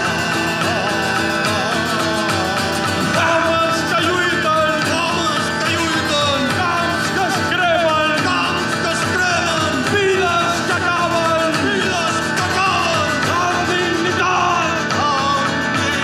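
Live music: a voice singing over guitar-led band accompaniment.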